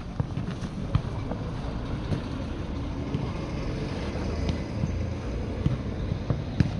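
Steady low rumbling background noise of a jokgu court, with a few sharp knocks of the ball being kicked or bounced, the clearest about a second in and near the end.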